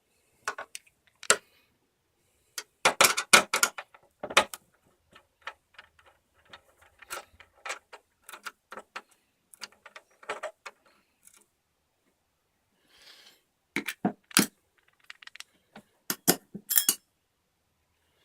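Irregular clicks, taps and light rattles of a screwdriver and a small screw being worked out of a plastic computer case, with loose parts handled in between.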